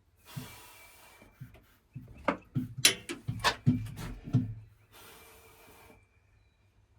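Hands-on work noise: rubbing and scraping, then a quick run of sharp clicks and knocks, as the wiring at a switch box is handled.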